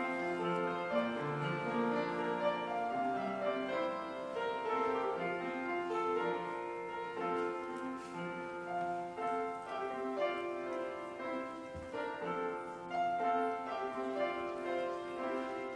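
Upright piano played solo: a continuous run of held notes and chords.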